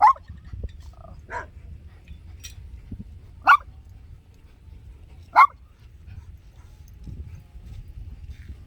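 A dog barking in single sharp barks, four in all, spaced about one to two seconds apart, the second one fainter.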